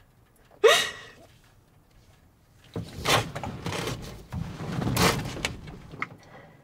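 A person crying: a sharp gasping sob with a short rising cry about half a second in, then a few seconds of ragged, heavy breathing from about three seconds in.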